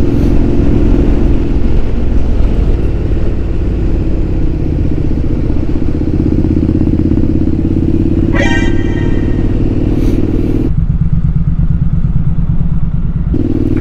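Triumph Street Scrambler's 900 cc parallel-twin engine running steadily at cruise, with wind rush over the bike. A short high-pitched sound comes about two-thirds of the way through. Near the end the engine note drops lower for a few seconds, then returns.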